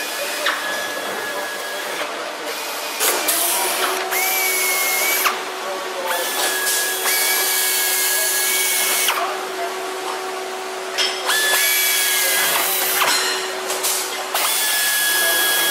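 Pneumatic air drill drilling aluminium wing skin: a steady high whine in about five short runs of one to three seconds each, starting and stopping suddenly, over bursts of compressed-air hiss from the air tools.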